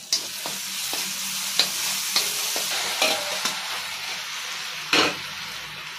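Food sizzling in hot oil in a kadhai while a metal spoon stirs it, with sharp clicks of the spoon striking the pan every half-second to second; the loudest strike comes about five seconds in.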